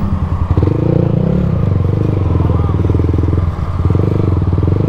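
Motorcycle engine running steadily while under way, with a short dip in the engine note about three and a half seconds in.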